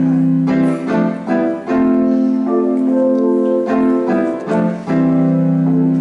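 Keyboard or piano intro of a song, with held chords changing every second or so.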